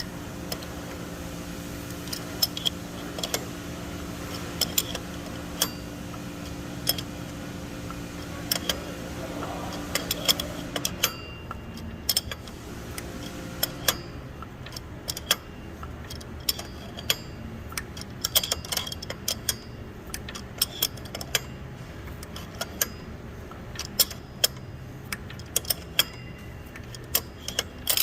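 Irregular sharp metallic clicks and clinks of wrenches working a draw-through pulley installer tool, pressing the pulley onto a Ford 5.4 3V power steering pump shaft. A steady low hum runs underneath and stops about eleven seconds in.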